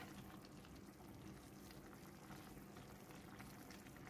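Faint bubbling and crackling of braising gravy boiling in an open clay pot.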